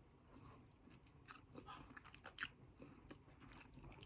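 Faint chewing of a mouthful of Filipino-style sweet spaghetti with meat and sausage, with small mouth clicks scattered throughout.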